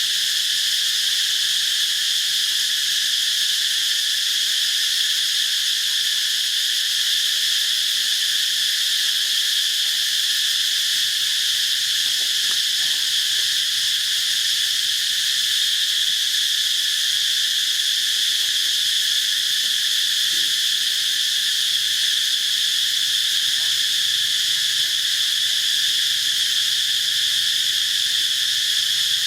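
Dense insect chorus: a loud, steady, high-pitched shrill that does not let up.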